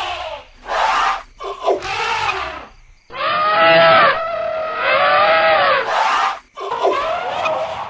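Elephants trumpeting and screaming: several short, bending calls in the first two seconds, then a long wavering call lasting about three seconds, and another call near the end.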